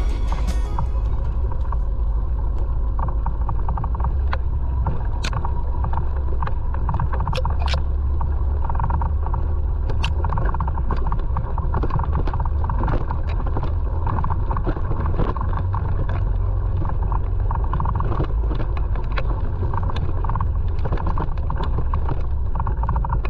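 ATV running along a dirt trail: a steady low engine and drivetrain rumble with wind buffeting, and scattered sharp clicks and knocks.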